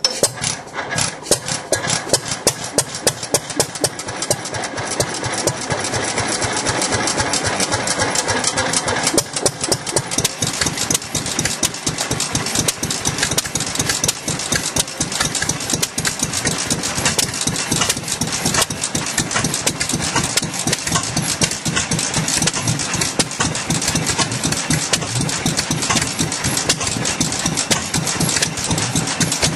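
Antique water-cooled stationary gas engines with heavy flywheels running together, a rapid, even stream of exhaust pops and mechanical clatter. In the first few seconds single loud firing strokes stand out before the sound settles into a denser steady run.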